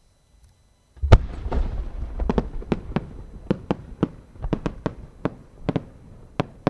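A 10-inch (10-go) Japanese firework shell launching with a deep boom about a second in, then a string of sharp cracks, about fifteen in five seconds and irregularly spaced, as the small sub-shells fixed along its rising tail burst one after another on the way up.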